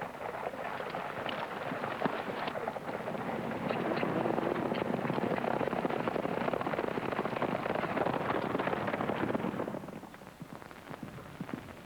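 Hooves of several horses galloping, a dense clatter that drops away near the end.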